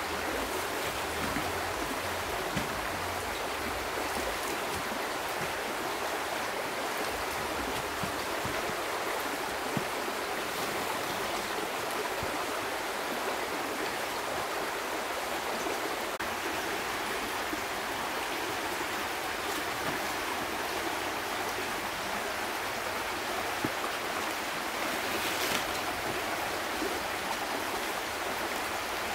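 Steady rushing of a flowing river close by, with a brief rustle of large banana leaves being handled near the end.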